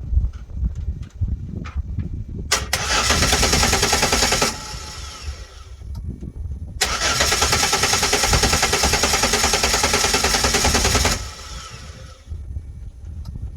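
2006 Chevrolet Impala engine cranking on the starter twice, first for about two seconds and then for about four, with a fast even pulsing. Each time it stops without catching: a crank-no-start.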